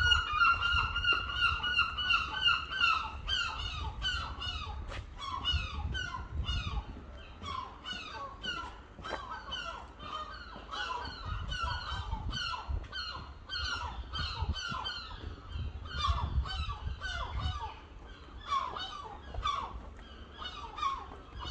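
Large birds calling in a long run of short, repeated honking calls, loudest in the first few seconds and carrying on throughout, over a low rumble.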